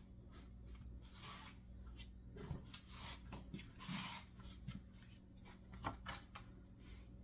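Quiet room with a steady low hum, under faint rustling and a few soft knocks as a person moves about and handles things at a table.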